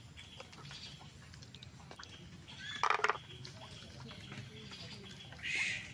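Frogs calling from nearby floodwater: one loud short croak about three seconds in and a shorter, higher call near the end, over faint steady high calling.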